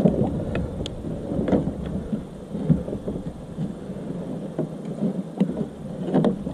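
Water splashing and irregular knocks and bumps against a kayak as a big blue catfish is wrestled alongside the boat, over a low rumble of handling noise. The loudest knock comes right at the start.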